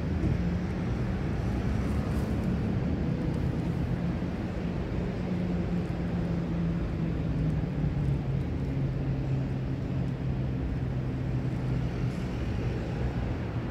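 A low mechanical engine drone over steady outdoor background noise, its pitch sliding slowly downward over several seconds.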